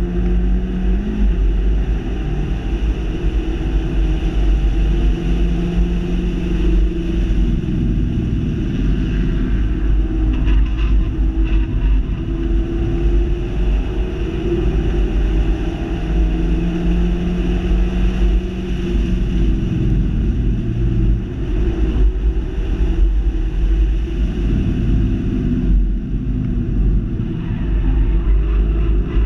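Ford Fiesta ST's turbocharged 1.6-litre four-cylinder heard from inside the cabin at track pace, the revs rising and falling, over heavy low rumble from wind and road.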